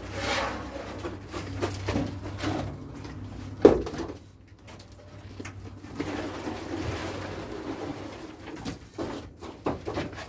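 Mortar buckets being handed up and down a scaffold, with one loud thud about a third of the way in as an emptied bucket lands on the ground, then a few light knocks near the end.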